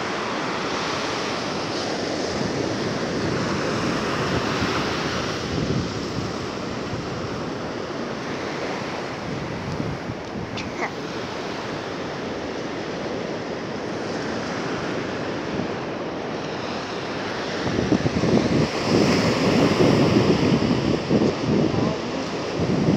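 Ocean surf washing in and out at the shoreline in a steady hiss, with wind gusting on the microphone, which rumbles louder in the last few seconds.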